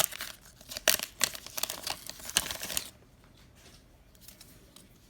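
Plastic wrapper of a Panini NBA Illusions fat pack being torn open and crinkled, a quick run of sharp crackles over the first three seconds, then only faint handling.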